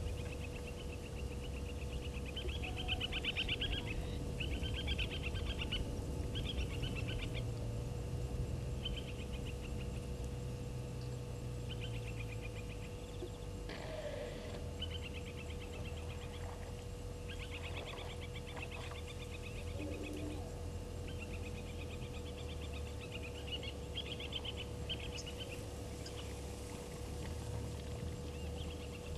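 Waterhole ambience: short, rapidly pulsed trilling calls from a small animal, repeating every second or two, over a steady faint hum and low background rumble.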